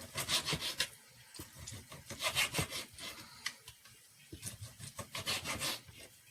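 Knife cutting raw chicken into pieces, in three bursts of quick back-and-forth strokes.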